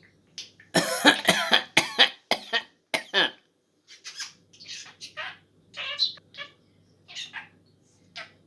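Budgerigar making a rapid run of loud cough-like sounds for about three seconds, then a string of shorter, softer chirps and chatter.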